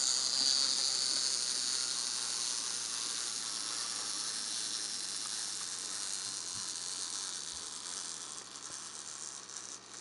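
Clockwork spring motor of a Fridge Rover wind-up toy whirring as it drives the toy up a fridge door, a steady high-pitched buzz. It starts suddenly when the toy is let go, then slowly fades and drops a little in pitch as the spring runs down.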